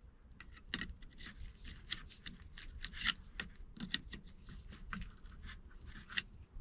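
Irregular small clicks, taps and short scrapes of hands and a tool working on a rusty seat-adjuster mechanism, several a second and uneven in strength.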